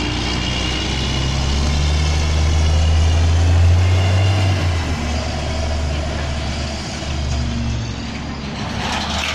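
Diesel engine of a rear-loader garbage truck pulling away and accelerating, its low engine note building to a peak about three to four seconds in, then easing off as the truck moves away down the street.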